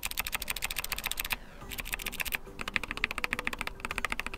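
Keychron K4 HE's Nubia Linear magnetic switches pressed rapidly, several keystrokes a second with a few short pauses. The F8 and F9 keys give a scratchy sound that is heard as a fault in those keys.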